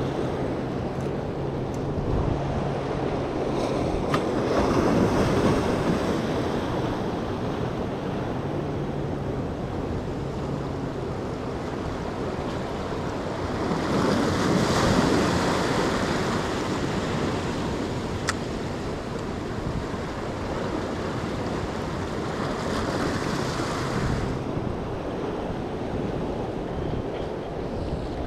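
Waves surging and washing against the jetty's rock blocks, with wind buffeting the microphone; the surf wash swells up three times, roughly every nine or ten seconds, with a couple of faint sharp clicks in between.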